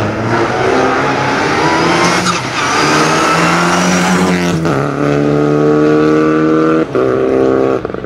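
Rally car engine at full throttle, climbing in pitch and dropping at upshifts about two and four and a half seconds in. It then holds high revs, dips briefly, and falls off near the end.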